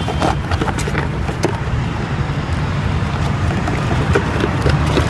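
Steady low rumble and hiss of outdoor background noise, of the kind heard from traffic, with a few light clicks from hands handling small objects near the microphone.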